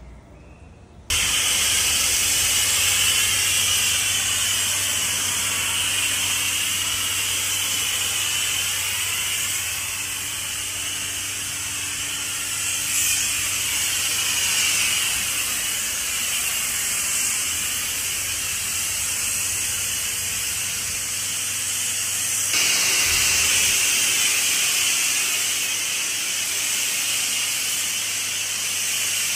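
Pressure-washer foam lance spraying snow foam: a loud, steady hiss that starts abruptly about a second in and keeps on, shifting slightly a little past two-thirds of the way through.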